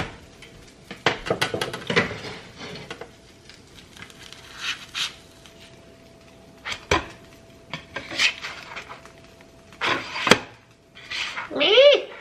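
Dishes and utensils clinking and knocking in a kitchen, then near the end a cat gives one meow that rises and falls in pitch.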